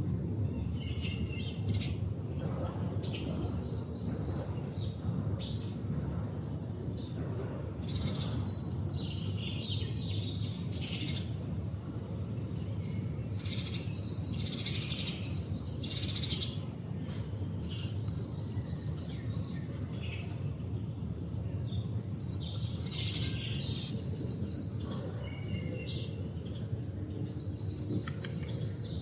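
Male house sparrow chirping: bouts of short, repeated chirps that come every few seconds. Behind them runs a steady low background rumble.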